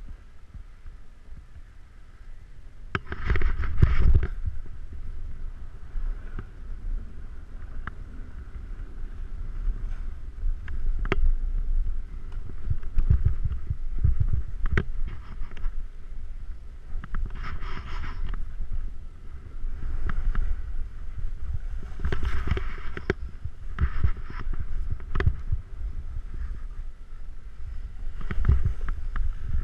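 Wind buffeting the microphone in a low rumble during a downhill run on snow, with repeated hissing scrapes of edges carving packed snow. The loudest scrapes come about three to four seconds in and around eighteen and twenty-two seconds, and a few sharp clicks fall in between.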